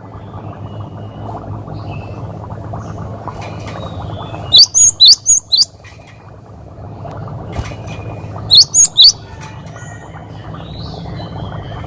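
Cinereous tit (gelatik batu) singing two short bursts of high, sharp whistled notes, about four near the middle and three more a few seconds later. A steady low hum runs underneath.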